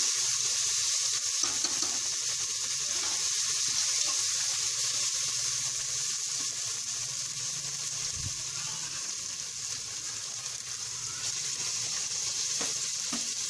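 Onions and ginger-garlic paste sizzling in hot oil in a pressure cooker as they are stirred: a steady frying hiss while the paste cooks off its raw smell.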